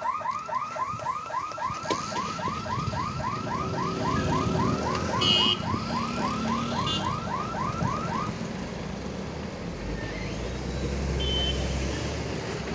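Level crossing's electronic warning siren: a rising chirp repeated about four times a second, which stops about eight seconds in. Short vehicle horn toots sound around the middle, and a low engine rumble comes near the end.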